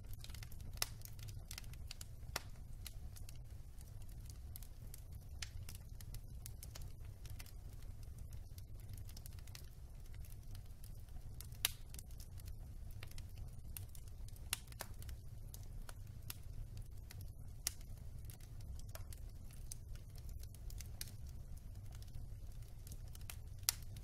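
Wood logs burning in a fireplace, crackling with irregular sharp pops and snaps over a steady low rumble. A few louder pops stand out, about a second in, near the middle and just before the end.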